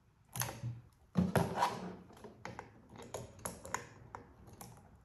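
Handling noise from the AEA M50 air rifle: a couple of knocks about a third of a second and just over a second in, then a string of light clicks and taps.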